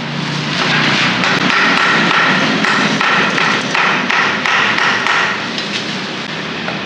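Chinese cleaver chopping roast duck on a thick wooden chopping block: a quick, irregular run of knocks, several a second, that stops about a second before the end.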